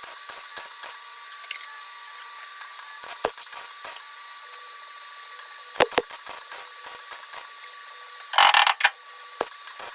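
Metal and tools being handled at a workbench: scattered sharp clicks and knocks, with one short, loud hissing burst of noise about eight and a half seconds in.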